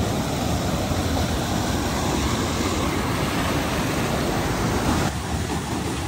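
Steady rush of white water from a mountain stream and waterfall tumbling over boulders. About five seconds in, the sound shifts slightly and becomes a little softer.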